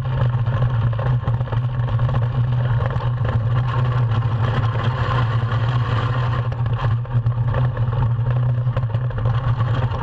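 Iceboat sailing at speed, its runners on the ice giving a steady low rumble under a hiss, with small irregular clicks and clatters as they run over the ice surface.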